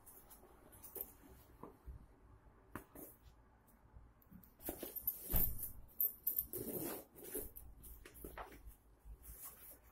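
Nylon tactical backpack being handled: irregular fabric rustling and scraping with small clicks from its zips and buckles, loudest in a flurry a little past the middle.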